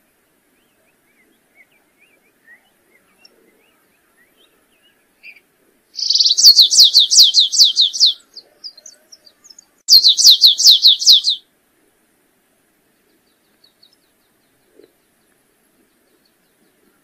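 Stripe-tailed yellow finch (canário-rasteiro) singing: two loud trills of rapid, repeated downslurred notes, the first about six seconds in and the second about four seconds later, each lasting around two seconds. A few faint, soft chips come before and between them.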